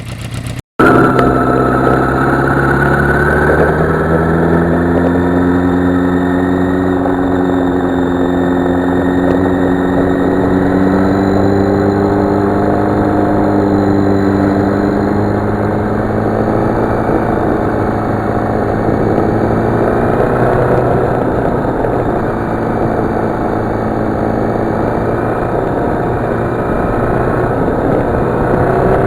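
Yamaha FZR motorcycle's inline-four engine running on the road, heard while riding. After a brief cut-out just under a second in, the engine pitch climbs slowly as it gains speed, then settles into a steady mix of engine and road noise.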